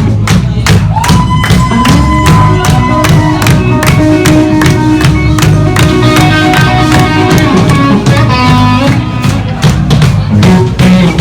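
Live rock band playing a blues-rock shuffle: electric lead guitar soloing with long held, bent notes over a steady drum beat and bass.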